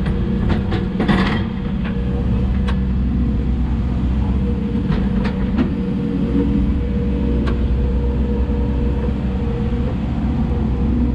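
Hidromek 140 excavator's diesel engine running steadily under working load, with a cluster of sharp knocks and rattles about a second in and a few single knocks later, as the machine works loading soil into a dump truck.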